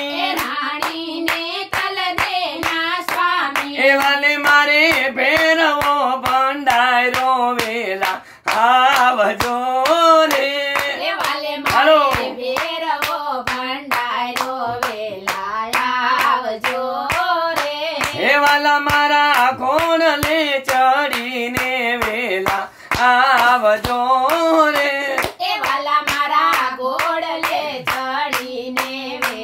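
A man and two women singing a Gujarati devotional dhun together, clapping their hands to a steady beat. The singing pauses briefly twice.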